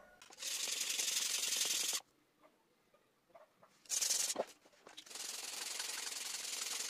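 Steel knife blade rubbed back and forth on a wet whetstone: a steady hissing scrape in three spells, the first about a second and a half long, a brief one near the middle, and a long one starting about five seconds in.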